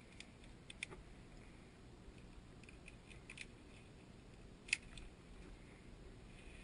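Faint, scattered metal clicks and clinks of via ferrata lanyard carabiners on the steel safety cable as they are moved past an anchor, with one sharper click about three-quarters of the way through.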